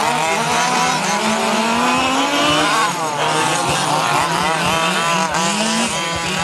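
Several large-scale (1:5) petrol RC off-road buggies racing, their small two-stroke engines buzzing at overlapping pitches and revving up and down as they accelerate and back off. One engine climbs steadily in pitch for about two and a half seconds, then drops.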